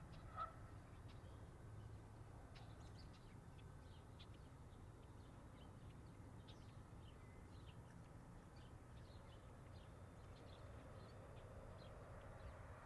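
Faint rural outdoor ambience: a steady low rumble of distant road traffic under scattered small bird chirps, with one short animal call just after the start.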